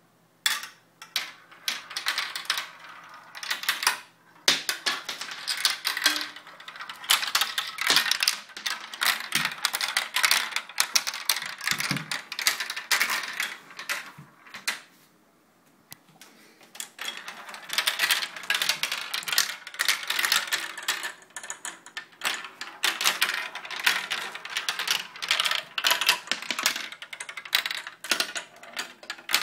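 Marbles rolling and clattering down a six-foot-tall marble run: a dense stream of clicks and rattles, with a short lull about halfway through.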